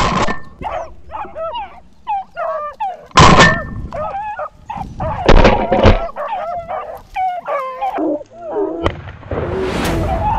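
A pack of rabbit-hunting hounds baying on a running rabbit in a string of short, yelping calls. Shotgun shots cut across it: one at the start, a loud one about three seconds in, and two more close together around five to six seconds. Near the end a rising rush of noise builds up.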